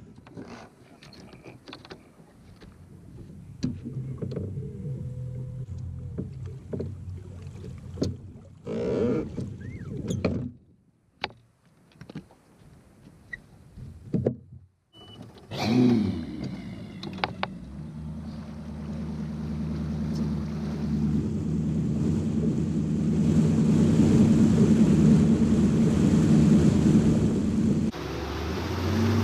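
Bass boat's outboard motor comes in about halfway through and runs steadily under way, a low hum over the rush of wind and water that grows louder toward the end. Before it, only scattered quiet clicks and knocks.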